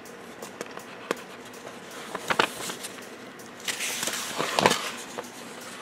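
Paper pages of an instruction booklet being handled and flipped: a few crisp snaps and rustles, with a longer rustle of pages turning about four seconds in.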